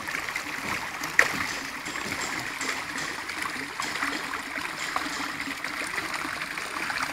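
Water running steadily, with one sharp click about a second in.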